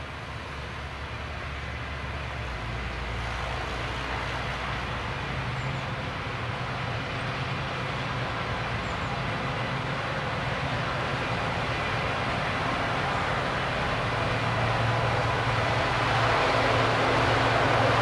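An engine running with a steady low hum, growing steadily louder as it comes nearer.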